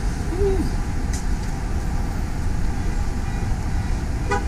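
Steady low rumble of outdoor background noise, traffic-like, with no distinct events; a brief voice fragment comes near the end.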